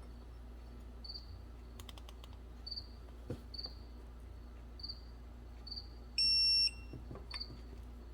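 A cricket chirping about once a second, with a few faint tool clicks. About six seconds in comes a single electronic beep lasting half a second, the loudest sound.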